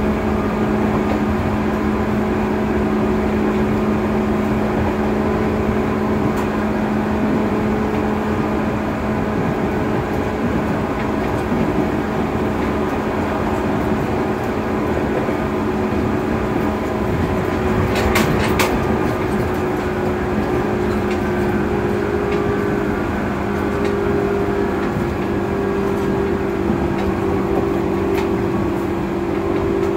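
Interior running sound of a JR 205-series 600 electric commuter train at speed: a steady rumble of wheels on the track with a steady hum, whose pitch shifts slightly in the last several seconds. A couple of sharp clicks come about 18 seconds in.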